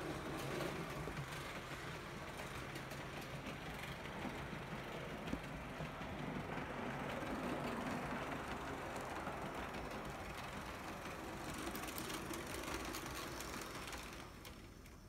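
Märklin H0 model trains running on the layout track: a steady mechanical running noise of motor and wheels on the rails, dying down near the end.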